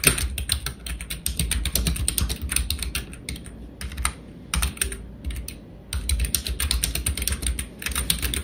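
Typing on a computer keyboard: quick runs of keystrokes, broken by a couple of short pauses near the middle.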